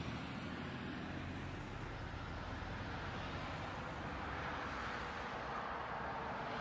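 Steady road noise of a car driving on a wet road, heard from inside the cabin through a dashcam.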